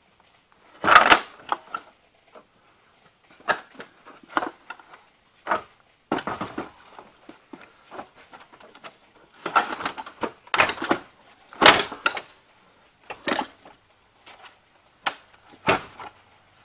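Knocks, clunks and scrapes of a car battery's plastic case being set down into and shifted about in its tray, loudest about a second in and again between about ten and twelve seconds.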